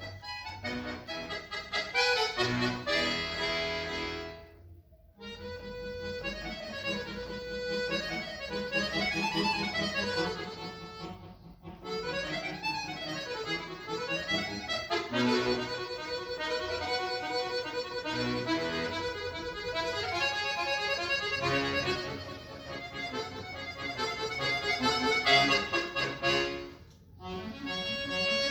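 Solo accordion playing: quick up-and-down runs over held chords, with short breaks between phrases about five seconds in, about eleven seconds in, and near the end.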